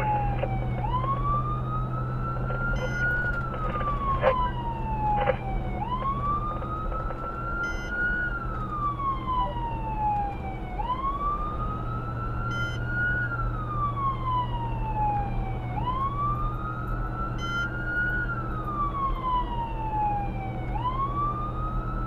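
Emergency vehicle siren sounding a wail, each cycle rising quickly and then falling slowly, about every five seconds, heard from inside the responding vehicle. Under it runs a steady engine and road drone, with a couple of short clicks about four and five seconds in.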